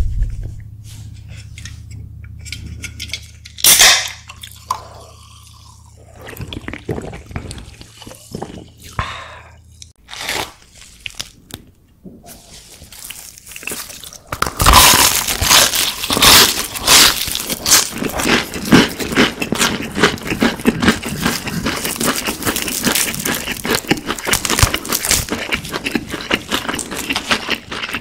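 Close-miked biting and chewing of crispy fried chicken, the batter crunching densely and loudly from about halfway through. Before that there is a quieter stretch with a low hum, scattered clicks and one sharp snap about four seconds in.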